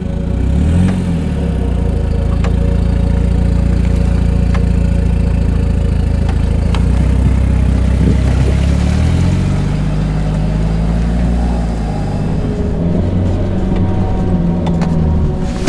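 Off-road 4x4 SUV engine revving under heavy load as it pushes through deep mud ruts. The revs climb about a second in and hold high, dip briefly around the middle, rise again and drop near the end.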